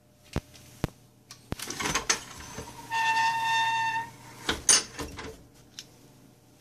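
Top-loading kiln being opened: a few sharp clicks and scraping, then a steady high-pitched squeal lasting about a second as the lid swings up, and a loud short scrape about a second later.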